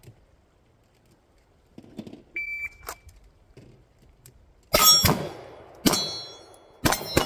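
A shot timer's start beep, then pistol shots about two seconds later: four shots come within about two and a half seconds, and each is followed by steel plate targets ringing as they are hit.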